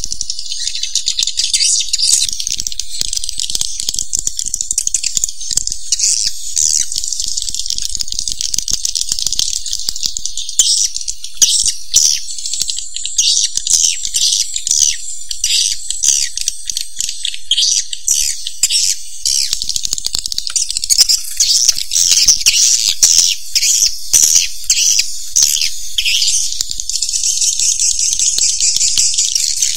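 Swiftlets' rapid, dry chattering calls: a dense, high-pitched rattle of clicks and chirps that never pauses. It is a swiftlet-call recording of the kind played to lure swiftlets into nesting houses.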